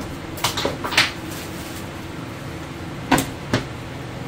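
Packaging being handled: a quick run of rustles and light knocks about half a second to a second in, then two dull knocks about three seconds in as the lid of a rigid cardboard gift box is set down. A steady low hum runs underneath.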